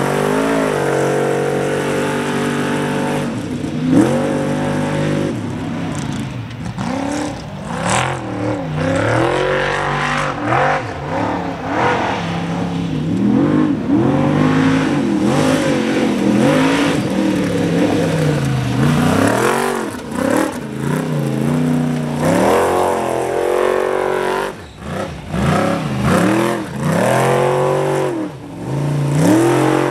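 Formula Offroad buggy engine revving hard under wide-open throttle as the buggy claws up a loose dirt hill. The pitch rises and falls again and again as the wheels spin and catch. There are a couple of sharp knocks, one about four seconds in and one about eight seconds in.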